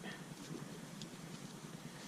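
Faint steady room hiss with a few light small clicks, the clearest about a second in.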